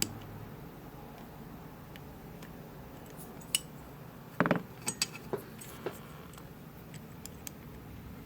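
Metal lock-picking tools clicking and scraping against the pins and keyway of a Winkhaus Titan euro cylinder: scattered sharp clicks, with a brief rattle about four and a half seconds in and a few more clicks after it.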